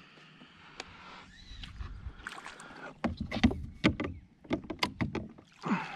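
A run of sharp, irregular splashes and knocks beside a kayak as a small northern snakehead is landed. It is sparse at first and thickest from about three seconds in.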